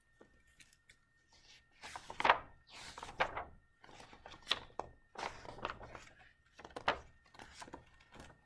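Pages of a hardcover picture book being opened and turned: a string of papery rustles and crackles with small knocks, loudest about two seconds in.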